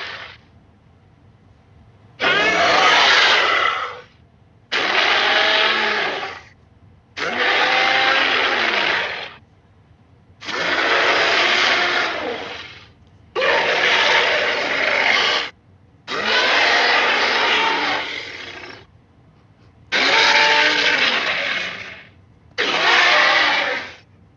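A series of eight Allosaurus roars from a sound-effects set, each about two seconds long and separated by short pauses.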